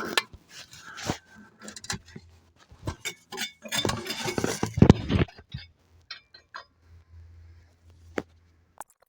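Metal clinking and knocking as chimney-pipe mounting hardware is handled: a run of quick clinks and knocks, busiest about four to five seconds in, thinning to scattered clicks and cutting off near the end.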